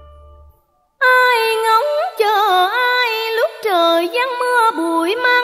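A sustained keyboard chord fades out, then after a brief silence a new piece of music starts about a second in. It opens with a loud solo melody line that slides between notes and wavers in pitch, with no words sung.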